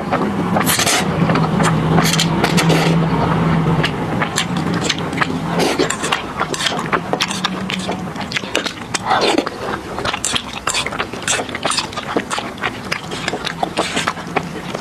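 Close-miked eating sounds: noodles slurped into the mouth, then wet chewing and lip-smacking as dense quick clicks and smacks throughout. A low steady hum runs through roughly the first half.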